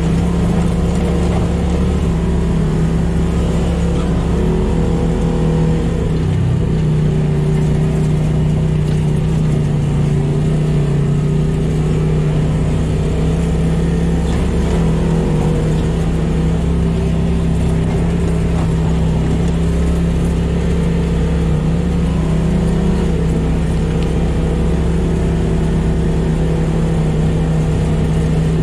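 Polaris RZR side-by-side engine running at a steady cruise, heard from the cab: a steady drone that barely changes in pitch.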